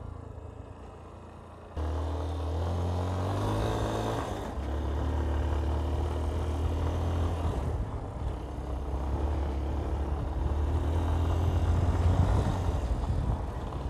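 Yamaha Ténéré 250's single-cylinder engine heard from on board while riding a dirt road: quiet at first, then the throttle opens about two seconds in and the pitch climbs, settling into a steady run from about four seconds in.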